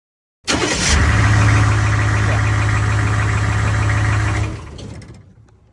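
Humvee diesel V8 engine starting up and running loudly with diesel clatter, now that the burnt terminal on its start relay has been fixed. It comes in about half a second in, holds steady for about four seconds, then drops away and fades near the end.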